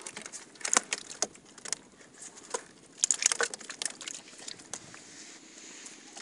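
Irregular sharp knocks and clatters from a small boat moving among bamboo fish-pen stakes, bunched about a second in and again around three seconds in, over a faint steady hiss.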